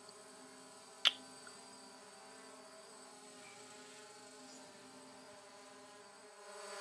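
DJI Phantom quadcopter's motors and propellers buzzing faintly and steadily as it hovers and shifts back and forth. There is one sharp click about a second in.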